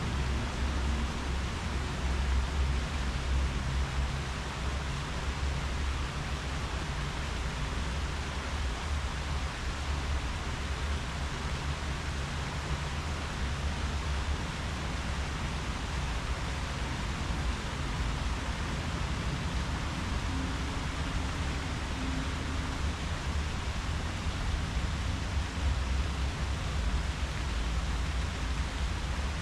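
Steady rustle of wind through tree leaves, an even hiss that does not change, with a low hum underneath.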